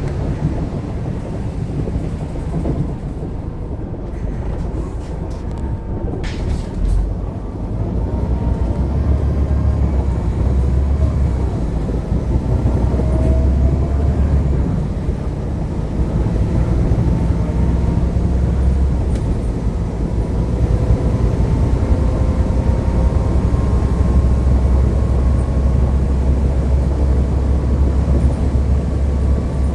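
Mercedes-Benz OC500LE CNG bus running, a steady low rumble with faint whining tones that slowly rise and fall, carrying the noise of a bad fan bearing. A brief sharp noise about six seconds in, and the running gets louder soon after.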